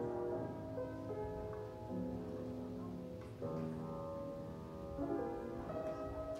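Instrumental background music: held chords that change every second or two.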